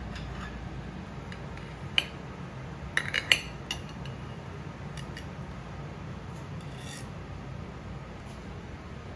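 A utensil clicking and scraping against plates a few times, loudest in a quick cluster about three seconds in, as a wedge of Spanish potato omelette is cut and lifted onto a serving plate. A steady low hum sits underneath.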